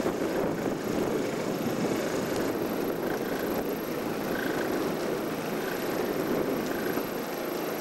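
Steady wind rumbling and buffeting on the microphone, an unpitched noise that swells and eases.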